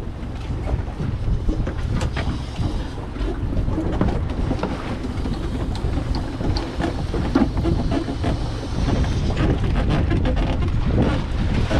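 Boat under way at trolling speed on open sea: a steady low rumble of its motor and the water, with wind buffeting the microphone.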